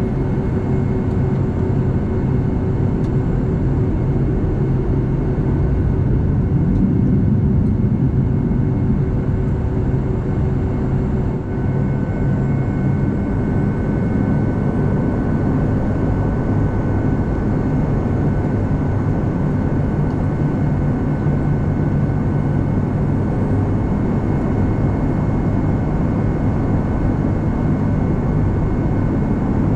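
Boeing 757-200's jet engines running at taxi power, heard inside the cabin as a steady low rumble. A faint steady whine joins about eleven seconds in.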